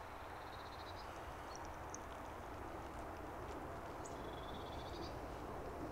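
Steady, faint outdoor background noise with faint bird chirps and short high trills, one about half a second in and a longer one around four to five seconds in.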